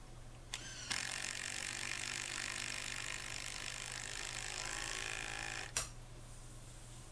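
Impact wrench driving a galvanised coach screw into a timber fence post: a click, then about five seconds of steady rattling hammering, cut off with a sharp click.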